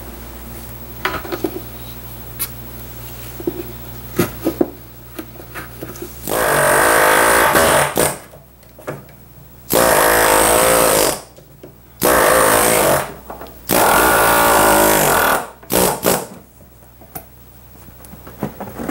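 Handheld pneumatic tack remover running in four bursts of one to two seconds and a short fifth, its buzzing pitch wavering, as it drives out the tacks along the edge of a chair seat's covering. Scattered light clicks and knocks come before the bursts, over a low steady hum.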